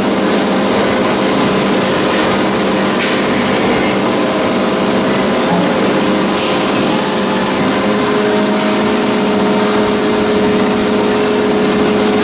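Press brake running as its ram strokes down and back up: a steady machine hum with several held tones, the tones shifting a little about two-thirds of the way through.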